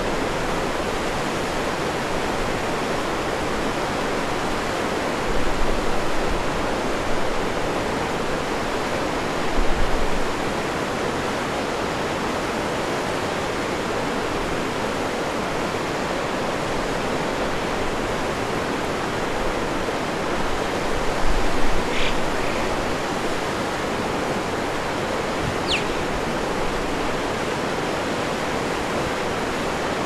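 Steady rushing noise of running water, with a few low wind bumps on the microphone and two brief, faint high chirps about three-quarters of the way through.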